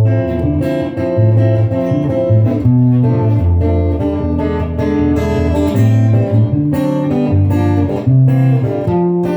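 Acoustic guitar playing chords, with plucked notes shifting over a low bass line.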